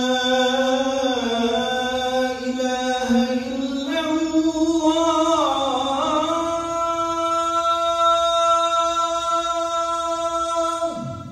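A man's solo voice chanting the Islamic call to prayer (adhan), drawing out the 'Ashhadu an…' line in a long winding melody. After about six seconds he settles on one held high note, which breaks off near the end.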